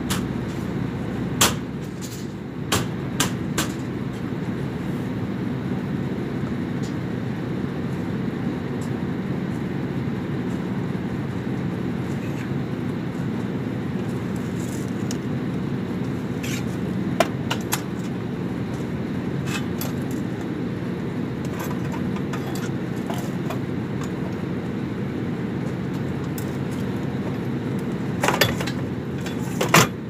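Steady low machinery hum with scattered sharp metal clanks and knocks as sheet-metal ductwork is handled. A few clanks come in the first few seconds, one about halfway, and a cluster near the end.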